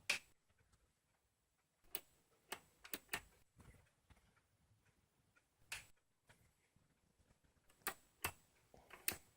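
Irregular sharp clicks, about nine, spaced from a fraction of a second to a couple of seconds apart, with near silence between them.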